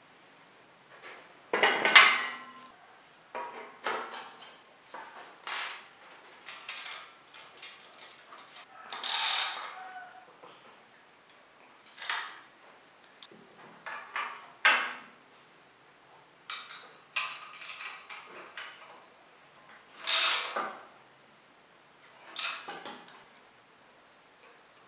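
Socket ratchet clicking in short, separate bursts with metallic clinks of the tool, as it works a cartridge bottom bracket tool and then a crank bolt on a steel bike frame.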